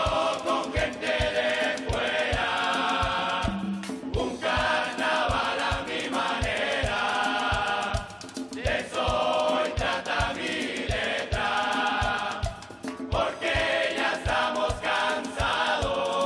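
Carnival murga chorus singing in unison over a steady bass drum beat of about two beats a second.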